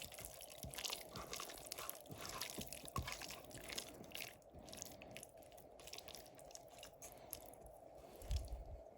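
Faint wet squelching and irregular crackly ticks of raw chicken pieces being mixed by hand into a thick besan and spice marinade, over a steady faint hum.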